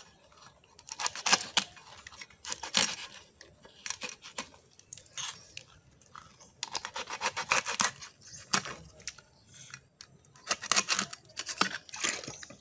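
Raw prawns being peeled by hand: shells cracking and tearing in short crackly bursts a second or two apart.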